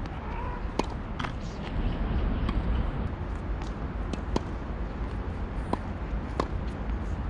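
Tennis balls struck by rackets and bouncing on a hard court during a forehand rally: a handful of sharp pops at uneven intervals, over a steady low rumble.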